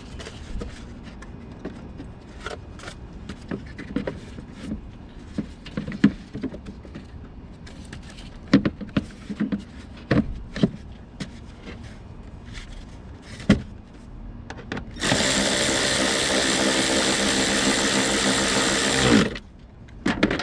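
Scattered clicks and knocks of tools and parts being handled, then a cordless power tool's motor running steadily for about four seconds and spinning down as it stops.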